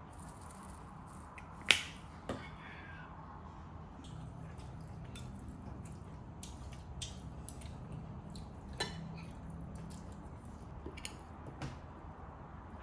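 Scattered sharp clicks and taps of tableware or utensils being handled, with one loud click about two seconds in and a steady low hum underneath.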